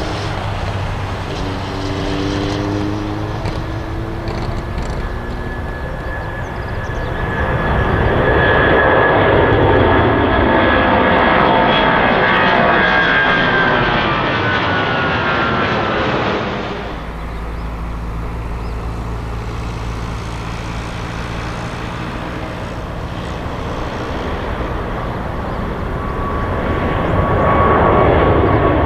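Airliner jet engines: the noise swells to a loud whine with sliding tones as a plane passes, then cuts off suddenly about two-thirds of the way in. It gives way to a lower, steady engine rumble that builds again near the end.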